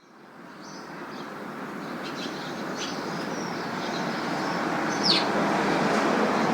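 Busy urban road traffic: a steady rumble of passing vehicles that fades in and grows louder, with birds chirping over it and one louder, short falling chirp about five seconds in.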